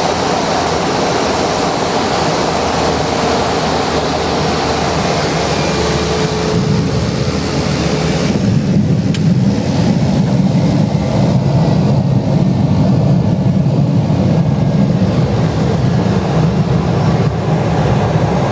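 Cessna 208B Caravan's Pratt & Whitney PT6A turboprop and propeller heard from inside the cockpit with airflow noise on final approach; after about seven seconds the aircraft is on the runway and the hiss gives way to a deeper, louder rumble as it rolls out, with a single click about nine seconds in.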